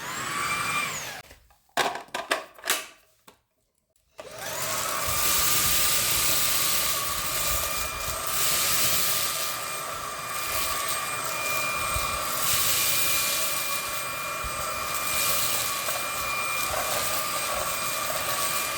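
A few short plastic clicks, then about four seconds in a Dreame V11 cordless stick vacuum's high-speed motor starts and runs steadily with a high whine and a rush of air.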